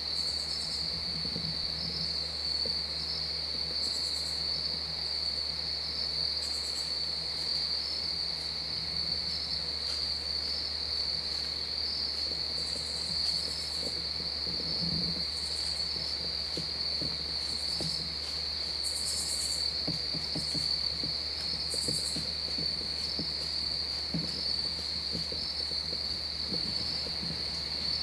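Steady, unbroken high-pitched trilling of crickets, with short bursts of even higher insect calls every second or two.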